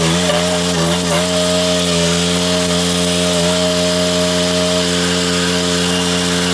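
The 420 cc, 15 hp petrol engine of a Victory GSF-1500 stump grinder running at a steady high speed, with the hiss of its cutting wheel on top. The pitch dips briefly a couple of times in the first second, then holds steady.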